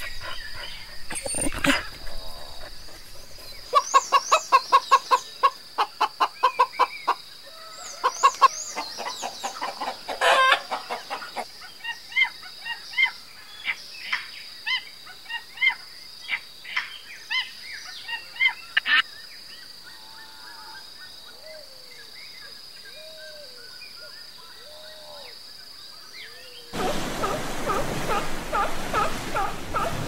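A sequence of different animal calls: a fast run of repeated calls, then scattered chirps and squeaks, then faint soft rising-and-falling calls. Near the end it gives way to the steady wash of surf on a beach.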